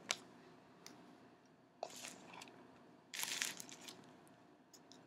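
Football trading cards being handled and slid against each other: a sharp click just after the start, then two brief rustling scrapes about two and three seconds in, with small ticks between.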